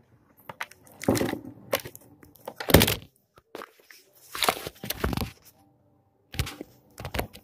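Handling noise as a USB cable is plugged into a laptop: irregular rustles and knocks with a few sharp clicks, close to the microphone.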